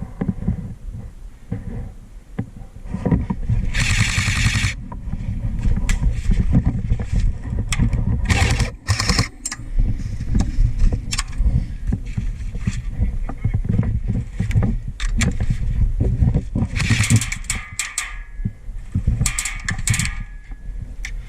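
Steady low rumble on a head-mounted camera microphone, with many scattered sharp clicks and a few short hissing bursts.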